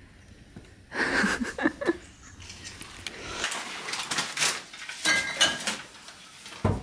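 Chopsticks and utensils clicking and clinking against a ceramic plate: a short clatter about a second in, then a run of light taps with a brief ringing clink, and a low thump just before the end.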